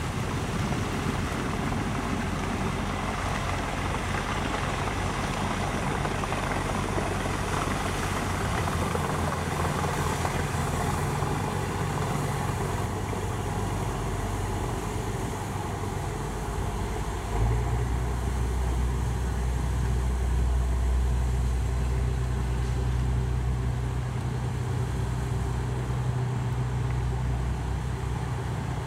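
Steady engine drone of a river passenger boat under way, mixed with city traffic noise. A little over halfway through, a deeper, louder low rumble joins and holds.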